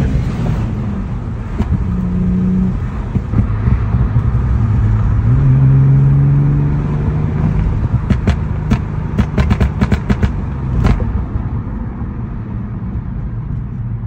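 Audi B5 S4's 2.7-litre twin-turbo V6 heard from inside the cabin, its note rising as it pulls under throttle. About eight seconds in, on lift-off, comes a rapid string of exhaust pops and crackles lasting some three seconds: the ECU's pops-and-bangs overrun map.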